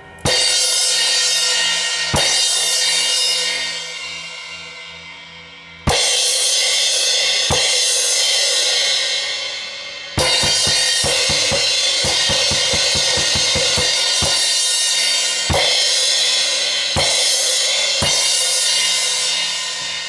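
Zildjian A Custom crash cymbals struck again and again on a drum kit, about eight crashes that each ring on and slowly die away. A quick run of drum strokes plays for a few seconds in the middle, under the ringing.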